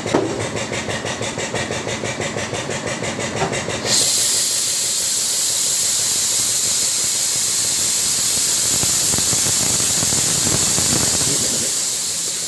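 A motor or engine running with a steady, even pulse; about four seconds in, a loud, even hiss starts while the hydraulic bead breaker's ram drives down onto the truck tyre, and it stops just before the end.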